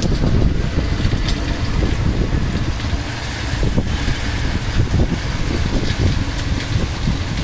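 Strong wind buffeting the microphone in a heavy, uneven rumble, over a steady hiss of heavy rain.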